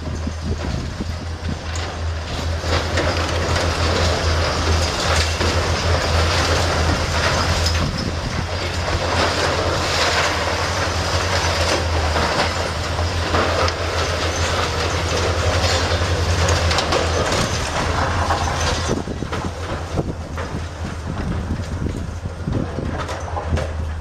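Concrete and debris crashing and clattering down as a high-reach demolition excavator tears into a gutted multi-storey building, over a steady low hum. The crashing is heaviest from about two seconds in and eases near the end.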